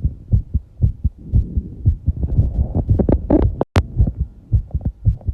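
A fast human heartbeat thumping in quick low beats, about two a second, after exercise. A rush of heavy breathing swells over it in the middle, and a sharp click comes a little past halfway.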